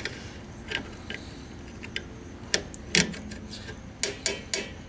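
Rear drum brake star-wheel adjuster being turned with a flat-blade screwdriver: a string of sharp, irregular clicks as its teeth go round, with three in quick succession near the end. The shoes are being adjusted out toward the inside of the drum.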